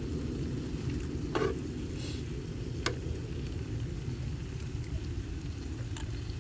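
Strong wind buffeting the microphone as a steady low rumble, with a few sharp clicks and a brief hiss from the grill.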